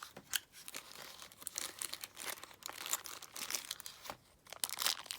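Padlock packaging being handled: irregular crinkling and rustling with small clicks, easing off about four seconds in before a few more clicks near the end.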